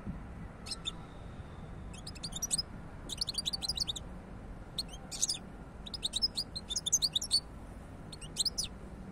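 European goldfinch singing: repeated short bursts of rapid, high twittering, with brief pauses between phrases.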